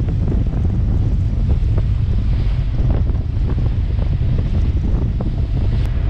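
Wind buffeting the microphone over the steady low rumble of a sportfishing boat under way and its churning wake water.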